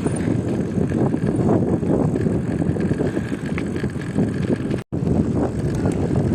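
Strong wind buffeting a phone's microphone during a bicycle ride on a dirt road: a dense, steady low rumble. It drops out for an instant about five seconds in.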